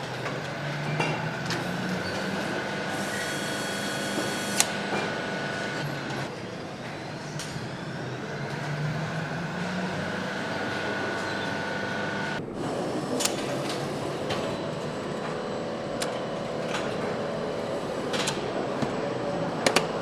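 Mechanical noise: a steady machine rumble with several held whining tones and scattered sharp clicks and clanks.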